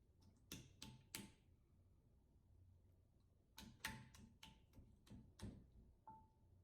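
Faint clicks and pops of slime being squeezed and kneaded by hand: a few about half a second in, then a quicker run of them from about three and a half seconds.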